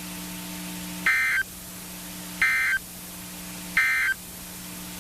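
NOAA Weather Radio SAME end-of-message data tones: three short, identical, harsh digital chirps about a second and a third apart, marking the end of an alert. A steady low hum from the radio runs under them.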